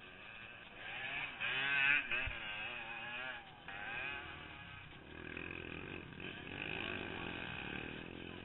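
TPC 450 race three-wheeler's engine, heard on board, revving with a pitch that wavers quickly up and down for a couple of seconds, then running steadier on the throttle.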